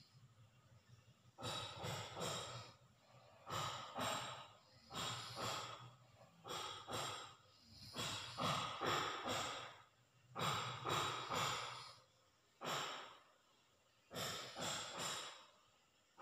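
A person snoring in deep sleep: about eight noisy breaths at an uneven pace, each broken into two or three short pulses.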